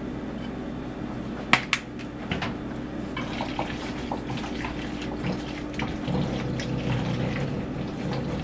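Two sharp clicks about a second and a half in as Cajun seasoning is shaken into the pot. Then a wooden spoon stirs macaroni and cheese in a metal saucepan with small wet scrapes and knocks, over a steady hiss and hum.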